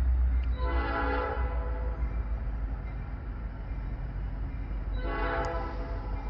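Freight locomotive's air horn sounding two blasts, each about a second long and some four seconds apart, over a steady low rumble.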